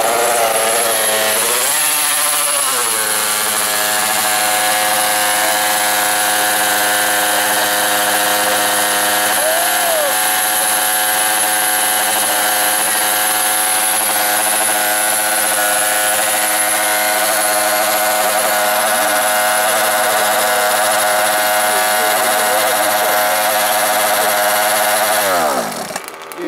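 Small two-stroke engine of a large-scale RC car with a tuned-pipe exhaust, its pitch wavering for the first couple of seconds and then idling steadily. Near the end the pitch falls away as the engine shuts off.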